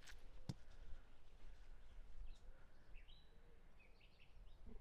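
Quiet outdoor ambience with birds chirping briefly in the second half, after two sharp clicks at the very start, half a second apart.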